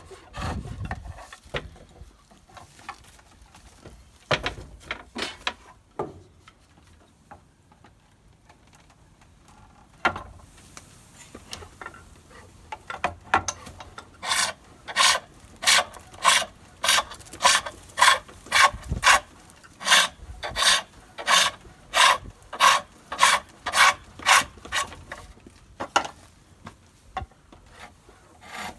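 Green ash spindle being turned on a treadle pole lathe: the turning tool shears wood in a rhythmic scraping cut at about two strokes a second, each stroke made as the treadle is pressed down. The work is irregular with a pause at first, then settles into a steady run of cuts about halfway through.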